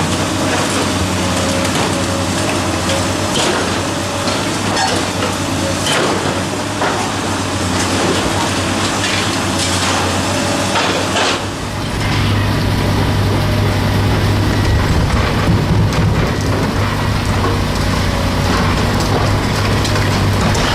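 Heavy machinery: irregular clattering and knocking for about eleven seconds, then an abrupt change to a steady low engine drone.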